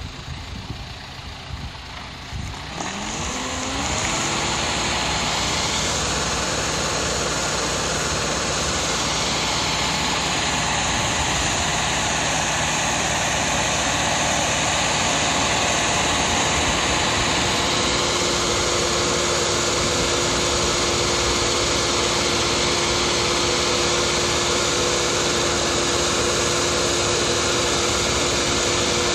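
Engine of a Lindner transporter and the lobe pump of its slurry tank, speeding up about three seconds in with a rising pitch. They then run steadily at high speed under the loud, steady rush of a slurry jet thrown from a spray cannon.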